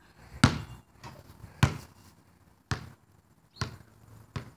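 A basketball being dribbled: five bounces about a second apart, the first two the loudest.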